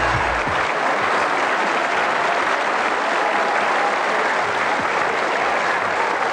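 Studio audience applauding steadily, with the low tail of a music sting cutting off in the first half second.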